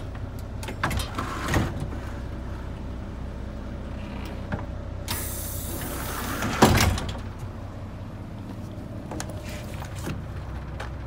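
Air-operated folding entry door of a Hino bus: a few small clicks early, then a hiss of air about five seconds in as the door swings, ending in a loud thump. The bus engine idles steadily underneath.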